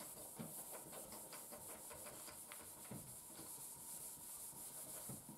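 Faint rubbing of an eraser wiping a whiteboard in short, quick strokes, then a marker writing on the board.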